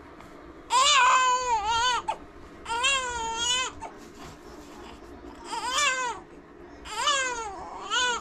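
Newborn baby, about six days old, crying in repeated cries of about a second each with short breaths between, each rising and falling in pitch. The parent wonders whether the crying means the baby is hungry for a feed.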